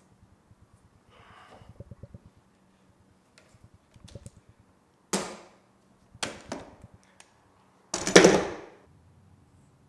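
Spruce root lashing being drawn through holes in the bark and pulled tight around a bark canoe's stem piece. It makes short scraping swishes a little after five, six and eight seconds in, the last the loudest, with softer rustling before them.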